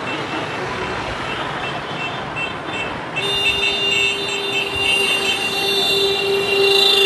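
Road traffic from a procession of motorcycles, cars and a bus driving past. About three seconds in, a vehicle horn sounds and is held on one steady note for about four seconds, louder than the traffic.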